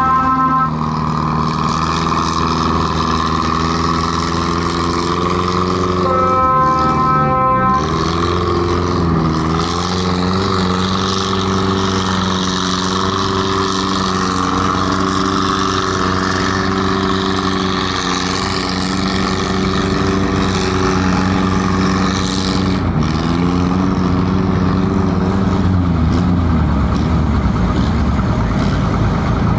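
Tractor-pull engines running loudly and steadily: the pulling tractor and the pull sled's own engine. The engine note dips and recovers about seven seconds in and again around twenty-three seconds, and turns rougher near the end. A steady horn tone sounds briefly right at the start and again about six seconds in.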